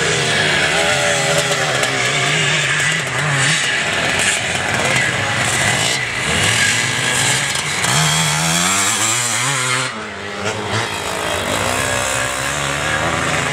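Off-road motorcycle engine revving hard under load as the bike climbs a hill, its pitch rising and falling repeatedly with a brief drop off the throttle about ten seconds in.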